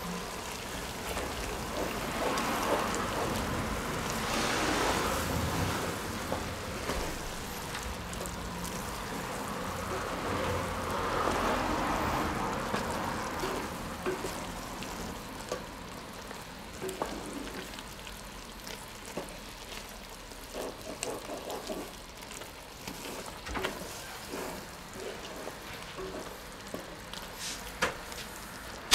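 Mushroom sauce with Dijon mustard simmering and sizzling in a cast-iron Dutch oven while a wooden spatula stirs it. The spatula scrapes through the sauce and makes light taps against the pot. It is louder in the first half and quieter later, with scattered taps.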